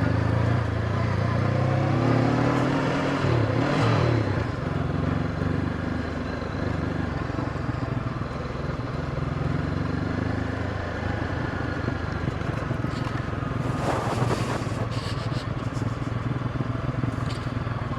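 Honda CB500X's parallel-twin engine pulling on a dirt trail, revving up about two to four seconds in, then running steadily. There is a short burst of noise about fourteen seconds in.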